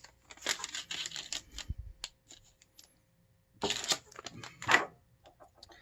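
Clicks and short rustles of computer parts and packaging being handled, in two clusters with a pause of about two seconds between them.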